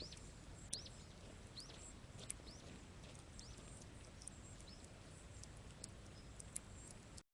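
Faint small birds chirping: many short, arched calls. There are a few sharp pops and a low rumble underneath.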